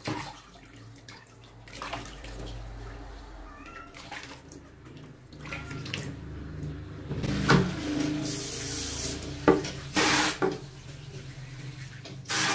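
Water splashing in a plastic basin as hands rub and rinse a wet kitten: a series of short splashes, with a couple of brief gushes of spray water in the second half.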